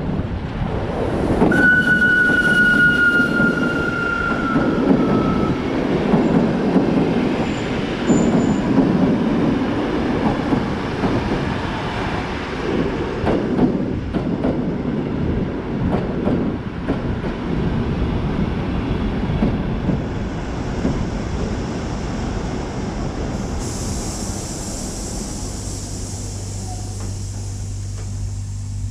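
Steam-hauled train of the VR Hr1 ('Ukko-Pekka') locomotive No. 1009 rolling along with a steady rumble of wheels and carriages. A single high squealing tone sounds for about four seconds near the start, falling slightly in pitch. A hiss joins in near the end.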